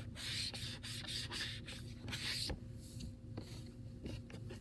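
Chalk being wiped off a chalkboard with a handheld eraser: a string of uneven back-and-forth rubbing strokes.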